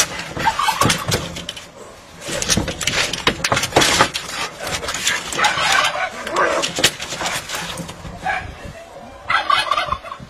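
Two cats fighting, screeching and yowling in harsh bursts, mixed with scuffling and scraping on the corrugated roof sheet they are wrestling on. The cries come in several loud spells with a lull shortly before a last burst near the end.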